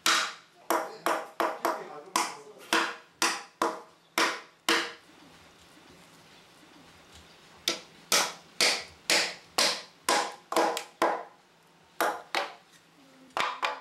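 A hammer knocking wooden wedges into the back-cut of a Kitayama cedar log, sharp single strikes about two a second. The strikes stop for a few seconds in the middle, then a second run follows, with a few last knocks near the end. The wedges hold the back-cut open so the log does not crack as it dries.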